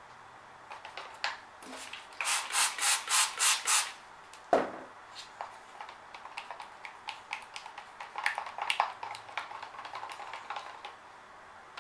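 A stir stick scraping and tapping against the inside of a cup of acrylic pour paint being mixed. About two seconds in comes a quick run of about seven scrapes. Then one sharp knock, then lighter clicks and scrapes as the stirring goes on.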